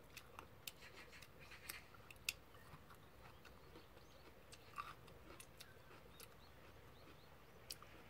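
Faint sounds of a person eating with metal chopsticks: quiet chewing and scattered small clicks, most of them in the first two seconds and a few more later, over near silence.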